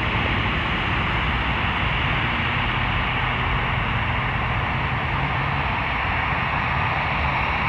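Steady static hiss from an air traffic control radio feed between transmissions, with a low hum underneath.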